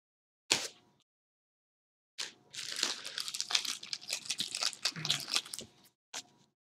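Crinkly plastic packaging being handled and pulled open: one short crackle about half a second in, a long run of crinkling from about two seconds in, then another short crackle near the end.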